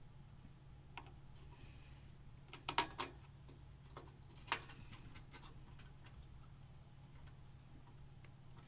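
Screwdriver and small screws clicking and tapping as a motherboard is screwed into a PC case: a single click about a second in, a quick cluster of sharper clicks around three seconds in, and one more near halfway, over a faint steady hum.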